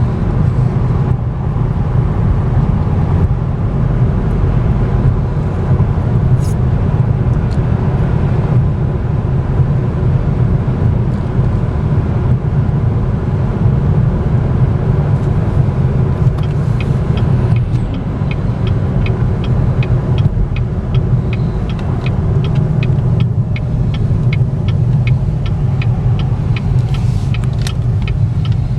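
Steady low road and tyre rumble inside the cabin of a 2014 Cadillac ELR cruising down the road. Just over halfway through, an even clicking starts, about two to three clicks a second, and keeps on.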